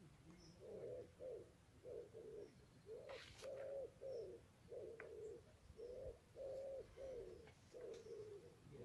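A pigeon cooing: a long run of short, repeated low coos in phrases, with a few faint high chirps from small birds.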